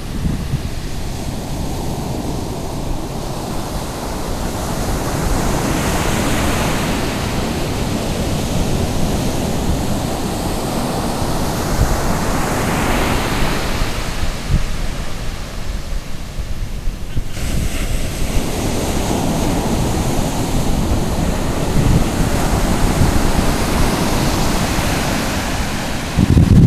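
Ocean surf breaking and washing up the sand in swells that build and fade, with wind buffeting the microphone.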